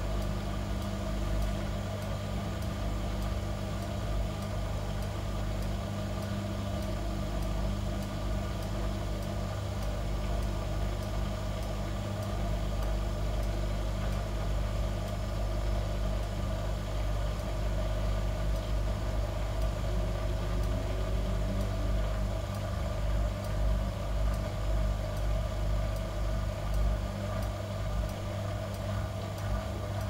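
Gorenje WA65205 front-loading washing machine on its final spin at 800 rpm with a king-size duvet inside: a steady motor and drum hum. Later on the level starts to pulse slightly and unevenly.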